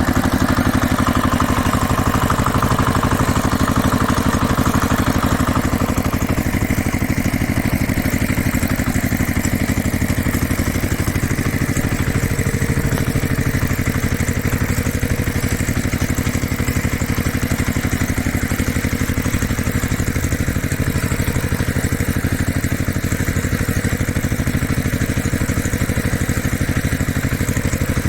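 A toy vehicle's small motor running steadily, with a very fast even clatter over a low hum.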